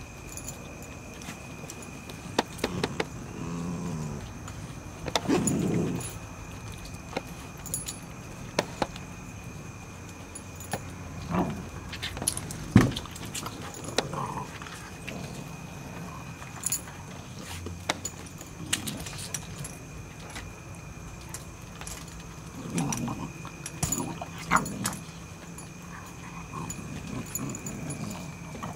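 Boxer, Cane Corso and pit bull terrier puppies play-fighting: low growls in a few short bouts, near the start and again near the end, with claws clicking and scrabbling on wooden deck boards and collars jingling.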